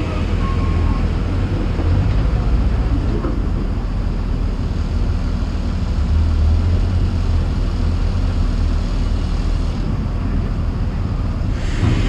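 Diesel engine of a Junttan PM23 tracked pile driver running with a steady low rumble close by.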